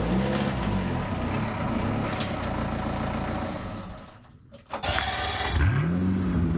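Diesel car engine running with its exhaust off: the revs rise and fall once near the start and settle into a steady run. It drops out briefly around four seconds in, then the revs climb again near the end.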